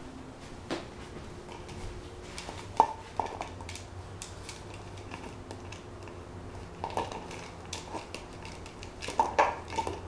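Puppy chewing on a plastic water bottle: irregular crackles and clicks of the plastic, with one sharp crack about three seconds in and a quick cluster near the end.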